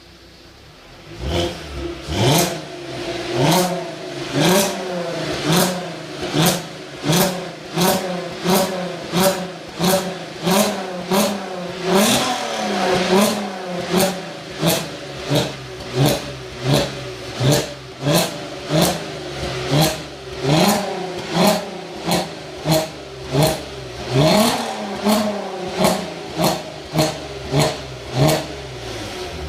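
An R32 car's engine revved over and over in short blips through its exhaust, the pitch rising and dropping back about one and a half times a second.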